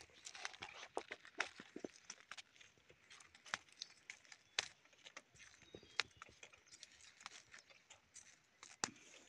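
Footsteps through dry forest leaf litter: irregular crackles and snaps of leaves and twigs underfoot, faint.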